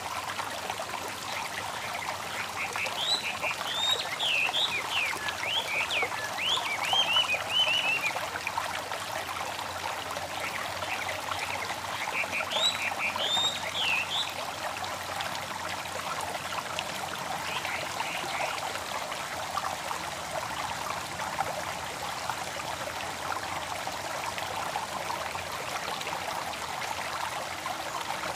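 Babbling stream with birds chirping over it. Bursts of quick rising-and-falling chirps come a few seconds in and again near the middle, with fainter ones a little later.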